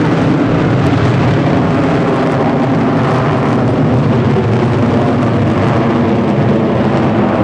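Jet engines of four US Air Force Thunderbirds F-16 Fighting Falcons flying in formation overhead: a loud, steady rumble.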